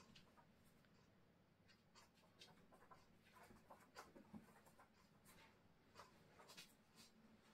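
Near silence, with faint soft rustles and small ticks of yarn and a plastic crochet hook being handled while a slip knot is tied and put on the hook.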